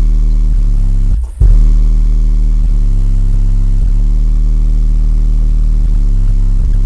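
Two 12-inch Ground Zero car subwoofers playing a loud, steady, deep bass note. The bass drops out for a moment a little over a second in, then comes straight back.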